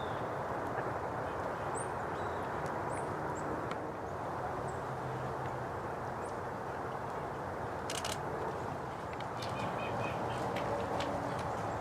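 Wild birds giving short, high chirps and calls over a steady low background noise, with a few sharp clicks in the second half.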